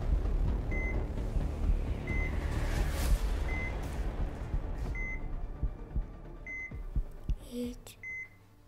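Hospital patient monitor beeping: a short high electronic beep about every one and a half seconds, over a low rumble that fades out about two-thirds of the way in.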